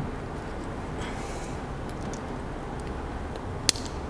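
A single sharp click about three and a half seconds in: the head of an NSK FX22 contra-angle dental handpiece snapping into place as it is reassembled, over a low steady hiss.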